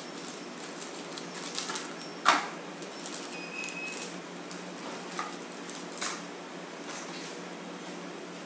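Baking paper crinkling and rustling as a brownie slab is handled on it, with one sharp knock about two seconds in, as an aluminium baking pan is set down on the counter, and a couple of lighter knocks later.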